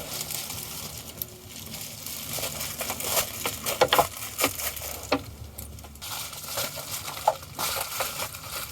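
Footsteps crunching and crackling irregularly on a dry trail.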